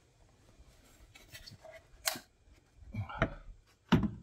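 Plastic engine cover of a Toyota FJ Cruiser being pulled off and handled: faint rubbing and scraping, with a sharp click about two seconds in and a knock near the end.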